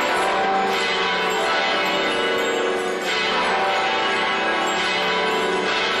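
Church tower bells and handbells ringing together, a dense, continuous peal of many overlapping bell strikes at different pitches.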